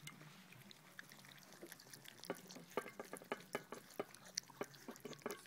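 Golden Retriever puppies lapping and gulping soft puppy porridge from stainless steel bowls: a run of quick, wet smacking clicks that grows busier after about two seconds.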